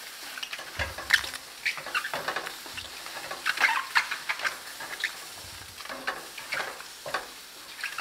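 Sliced white mushrooms sizzling in a stainless steel skillet while a silicone spatula stirs them, with repeated short scraping sounds of the spatula against the pan.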